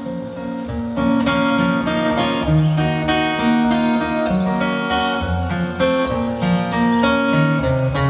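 Acoustic guitar played solo, an instrumental passage of a song with no singing; it grows louder about a second in.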